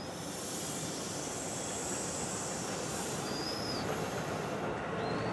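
NJ Transit MultiLevel passenger coaches rolling past on curved track, a steady rumble of wheels on rail. Short high-pitched wheel squeals from the curve come about three and a half seconds in and again near the end.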